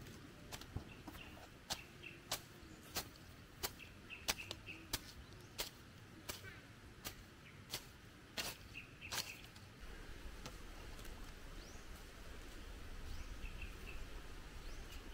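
Machete slicing through grass in sharp, even strokes, about one and a half a second, stopping about nine seconds in. A steady low rumble and a few faint bird chirps follow.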